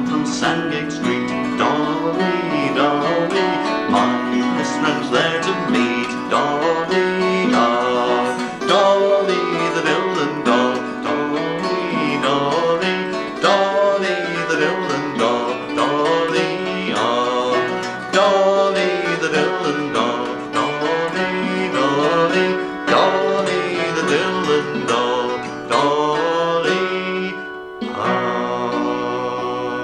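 Folk song played on acoustic guitar and hammered dulcimer, a man singing over the strummed guitar and the rapid hammered notes. Near the end the playing breaks off briefly and a last chord rings on.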